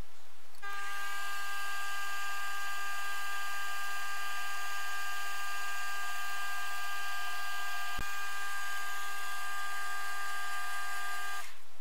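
Optimum D180x300 mini metal lathe starting about half a second in and running with a steady high whine of several tones, then switched off just before the end. One sharp click about eight seconds in.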